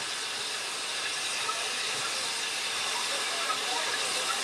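GWR 14xx-class 0-4-2T tank locomotive No. 1450 hissing steam steadily as it moves slowly forward.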